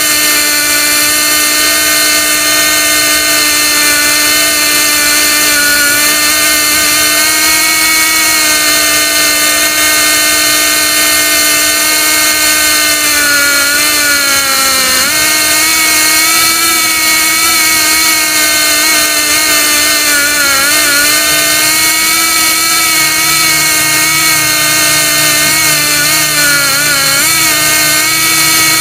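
Pneumatic air motor of a ship's pilot-ladder reel winch running steadily with a high whine as it heaves the ladder in. Its pitch sags briefly three times as it labours under the ladder's weight.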